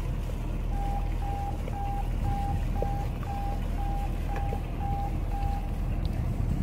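Moored boat's engine idling with a steady low drone. About a second in, a short electronic beep starts repeating about twice a second at one pitch, about ten times, and stops shortly before the end.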